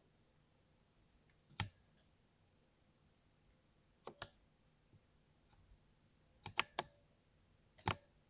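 Mechanical keyboard keys pressed one at a time, a sharp click every second or two: single strokes, a pair about four seconds in, and a quick run of three near the end.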